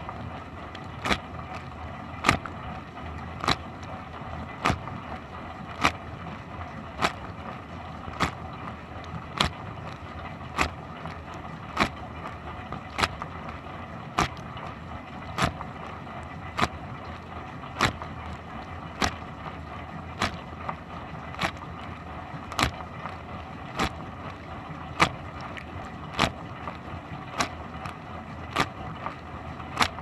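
Dishwasher running its wash cycle, heard from inside the tub: a steady rush of spraying water, with a sharp splash about every 1.2 seconds as the rotating spray arm's jet sweeps past.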